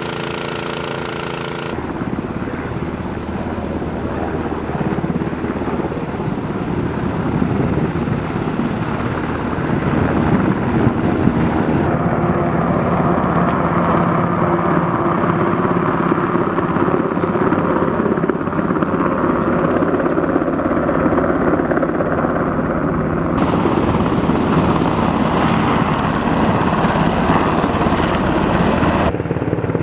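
Black Hawk helicopter flying low, its rotor and turbine engines running steadily. The sound shifts abruptly in tone a few times.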